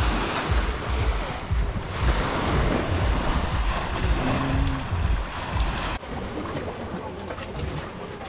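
Small waves breaking on a sandy beach, with wind buffeting the microphone. About six seconds in, it cuts abruptly to quieter water.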